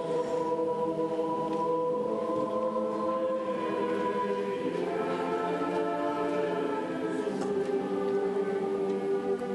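Church choir singing slow, sustained chords that shift a few times.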